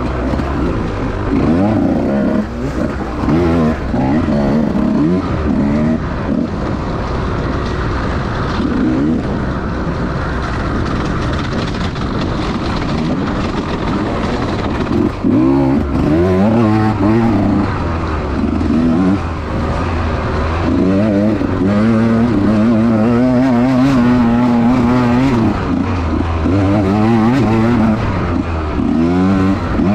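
Small-bore two-stroke dirt bike engine revving up and down over and over as it is ridden hard on a trail, its pitch rising and falling with the throttle over steady wind and road noise.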